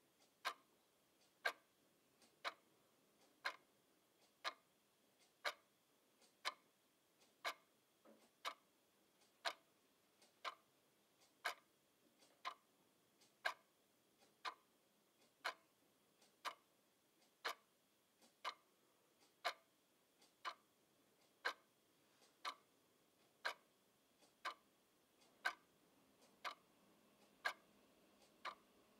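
Quartz twin-bell alarm clock ticking: one sharp tick each second, steady and even.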